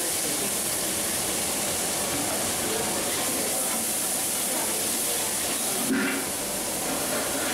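Steady hiss of a gas burner firing under a large cooking pot, with one knock of the ladle against the pot about six seconds in.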